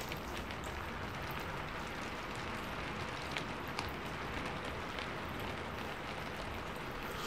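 Heavy rain falling steadily: an even hiss, with a few faint ticks over it.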